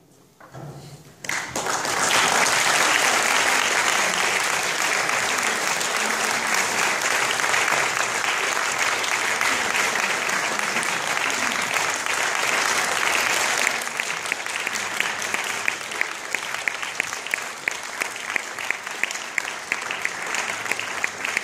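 Audience applauding: after about a second of near silence the applause starts, swells quickly and stays dense, then about two-thirds of the way through it turns into rhythmic clapping in unison, about two claps a second.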